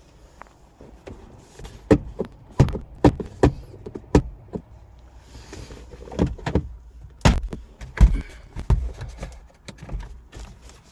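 A series of sharp clicks and knocks from handling a car's interior fittings, in two clusters: several in quick succession about two seconds in, then more about six to nine seconds in.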